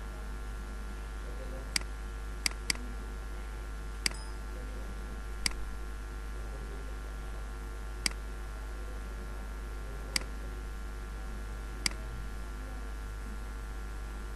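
Computer mouse clicking: about eight single sharp clicks spaced a second or more apart, with a quick double click about two and a half seconds in, over a steady low electrical hum.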